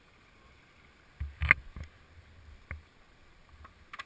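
A few sharp knocks and clicks over low rumbling, the loudest cluster about one and a half seconds in and single clicks later: handling noise as the rider moves with the camera and his riding gear. No engine is running.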